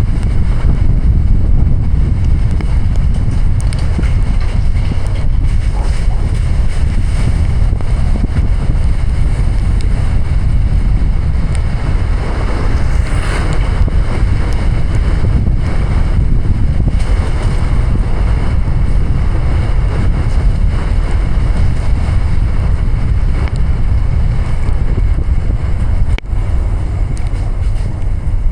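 Steady, loud low rumble of a car driving through heavy rain: rain and tyre spray on the wet road, mixed with wind noise on the microphone.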